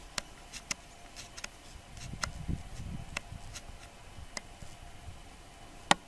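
About a dozen sharp, irregular taps or ticks, with one louder tap near the end, over a faint low rumble.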